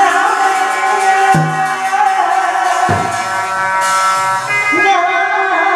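Hát bội (Vietnamese classical opera) music: a held, wavering melodic line over the ensemble, with two drum strokes about a second and a half apart.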